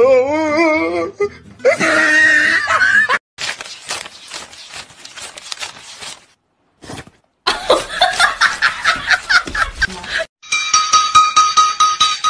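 People laughing, then a few seconds of rapid dense crackling from a stack of banknotes being riffled, then more laughter, then music with an even beat of ringing clinks near the end.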